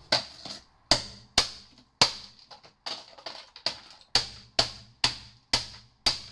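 A plastic-cased electrical appliance being banged repeatedly on the ground to smash its casing open: about a dozen sharp knocks, roughly two a second.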